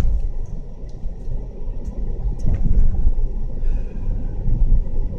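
Steady low rumble of a car heard from inside the cabin, with a few light clicks.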